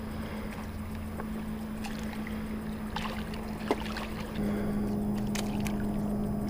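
Boat motor running with a steady drone that gets louder about four seconds in, with a few light clicks over it.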